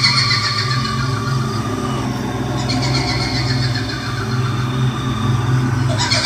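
Horror sound effect of the kuntilanak ghost's shrill, trilling cackle, falling in pitch, heard three times: at the start, about three seconds in, and again near the end, over a steady low drone.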